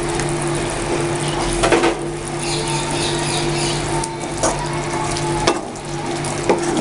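Chicken in tomato-onion masala sizzling in a nonstick pan while a spatula stirs it, with a few sharp clicks of the utensils against the pan. A steady low hum runs underneath.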